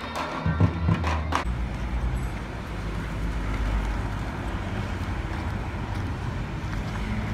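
Folk music with drum beats and a reedy pipe tune breaks off about a second and a half in. A steady low outdoor rumble follows, without clear drum strokes.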